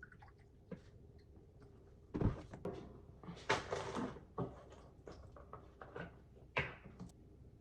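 Kitchen handling sounds: a dull thunk about two seconds in, then scattered knocks and clicks with a couple of short rushing noises.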